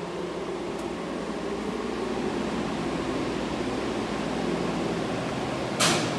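Steady humming, rushing background noise of the kind a fan or air handler makes, with a short hiss about six seconds in.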